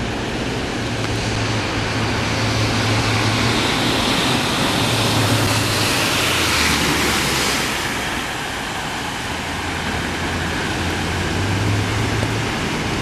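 Rushing floodwater of a creek over its banks, a steady loud rush that swells about halfway through, with a low hum that comes and goes underneath.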